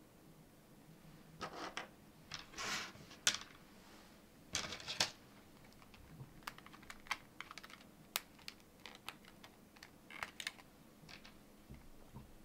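Small 3D-printed plastic parts and a printed plastic kit card handled by hand: a few short rattles and clatters in the first five seconds, then a string of small, sharp plastic clicks and ticks.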